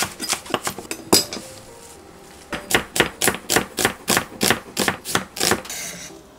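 Kitchen knife chopping on a cutting board: a few chops, a short pause, then a quick run of several chops a second, ending with a short scrape. Light background music.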